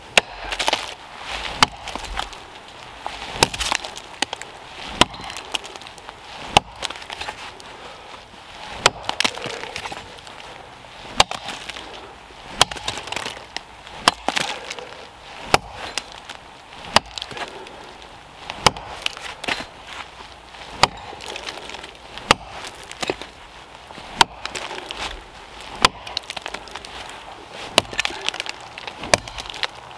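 Rinaldi Calabria axe chopping into a small standing tree: about twenty sharp blows of the axe head biting the wood, roughly one every one and a half seconds. The axe's edge has been freshly filed to a flatter profile and sharpened.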